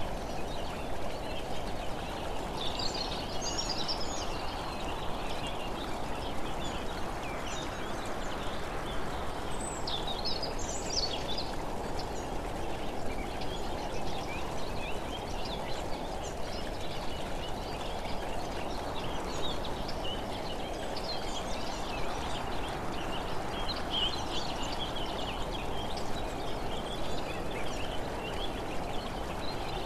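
Steady rushing wind and tyre noise from travelling along a road, with small birds chirping now and then, most clearly about three, ten and twenty-four seconds in.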